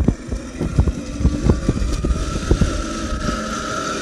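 Large radio-controlled model Tiger I tank driving, with a steady motor whine over a low rumble and many short, irregular knocks and clatters from the running gear.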